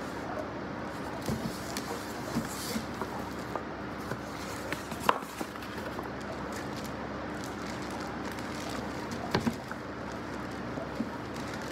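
Hands unpacking a wooden chessboard from its plastic wrap and foam end caps: scattered clicks and taps with light plastic crinkling, and a sharper knock about five seconds in, over a steady background hum.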